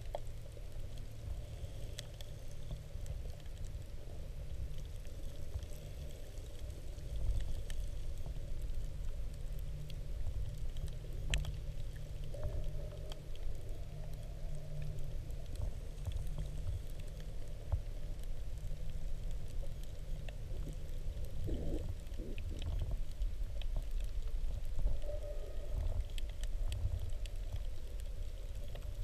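Underwater ambience picked up by a submerged camera: a steady, muffled low rumble of moving water with scattered faint clicks and crackles.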